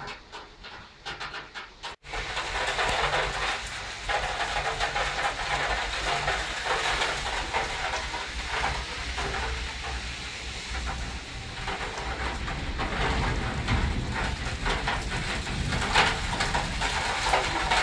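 Heavy thunderstorm rain pouring down, a steady dense hiss that sets in suddenly about two seconds in after a quieter start.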